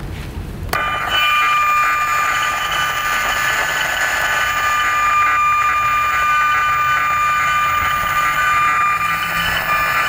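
Handheld RF electrosmog meter (50 MHz–3.5 GHz) in its audible mode. Its speaker turns the radio-frequency signal it picks up from nearby cell antennas into a steady buzz with several high steady tones. It switches on suddenly about a second in.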